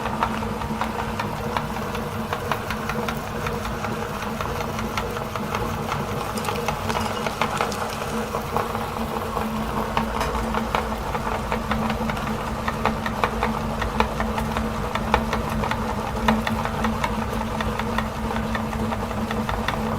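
Electric meat grinder's motor running steadily with a constant hum, and many sharp cracking clicks throughout as the grinder crushes chocolate bars.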